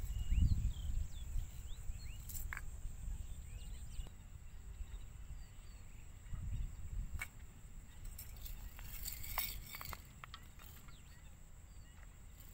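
Outdoor ambience: wind rumbling on the microphone, strongest about half a second in, with small birds chirping in the first second or two and a few light clicks. A thin steady high whine runs under it.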